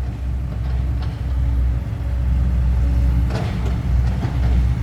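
Diesel dump truck engine running steadily with a deep, low hum, with a couple of faint clicks about three and a half seconds in.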